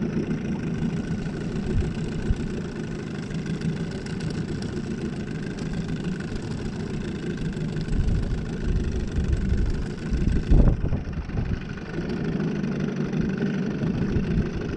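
Outboard motor idling with a steady hum while the boat sits with a fish on the line. A few low rumbling bumps come partway through.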